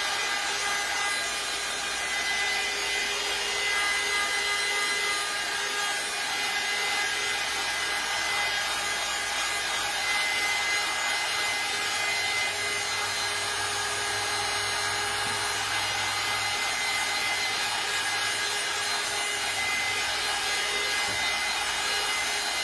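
Small handheld heat tool running steadily, its fan blowing hot air with a high whine over the noise, drying wet paint on a wooden surface.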